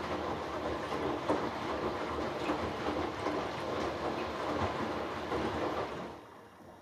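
Hoover Dynamic Next washing machine's drum turning during the final rinse, the dark load tumbling through the rinse water with a dense rattle of small knocks and splashes; the drum stops about six seconds in.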